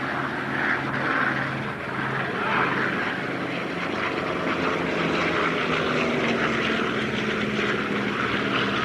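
F4U Corsair's Pratt & Whitney R-2800 radial engine and propeller running at power in a low fly-past, a steady drone whose pitch rises slightly past the middle.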